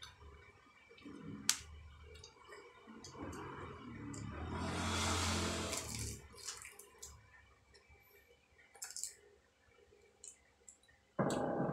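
Close-up eating sounds from a man chewing fried chili-pepper lumpia ('dynamite'): wet mouth clicks and smacks, with a longer, louder sucking sound in the middle as he puts his fingers to his mouth. A short hum of the voice starts abruptly near the end.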